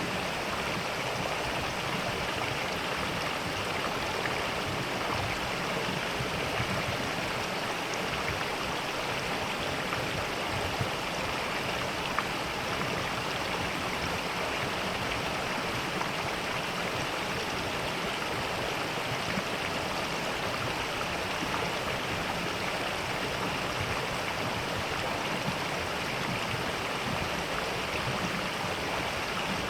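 Mountain valley stream running steadily over rocks, a continuous even rush of water.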